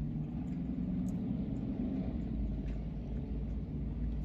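Steady low rumble of a car's idling engine heard inside the cabin, with a few faint clicks from chewing.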